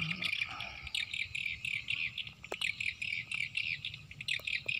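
Field insects chirring in a dense, rapidly pulsing chorus, with a few sharp clicks and a faint low rumble underneath.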